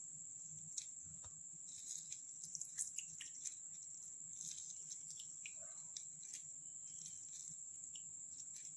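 Half a lemon being squeezed by hand into a glass: faint scattered small clicks and drips, mostly in the first few seconds, over a steady high-pitched whine.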